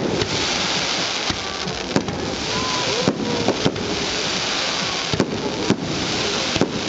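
Fireworks display with aerial shells bursting overhead: sharp bangs about once a second over a steady crackling hiss of burning stars.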